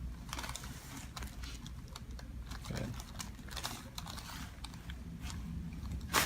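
Light, irregular clicks and rustles of hands and clothing moving on a chiropractic treatment table, over a steady low hum, with one sharp loud snap at the very end.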